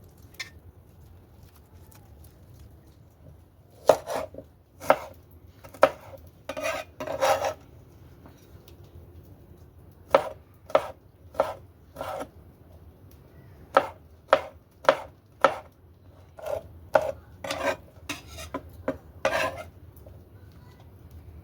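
A knife chopping on a cutting board: single sharp chops in uneven groups of three or four, with a few longer scraping strokes in between.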